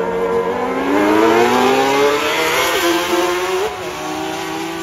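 Engines of two small junior sportsman dirt-track race cars accelerating side by side, their pitch climbing steadily, dipping briefly and climbing again, then falling off near the end.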